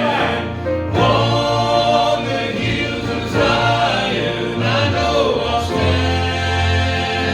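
Southern gospel vocal group singing in harmony over instrumental accompaniment with a bass line.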